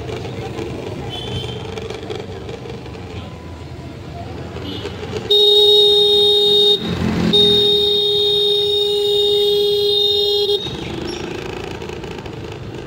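Street traffic with a vehicle horn held down. About five seconds in, a steady blast begins that lasts roughly five seconds, cut by a short break partway through. Passing cars and motor scooters can be heard underneath.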